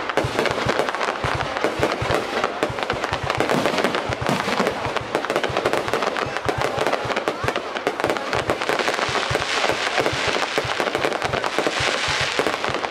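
Fireworks going off in a dense barrage of bangs and crackles in quick succession, with no pause. A brighter crackling hiss builds near the end.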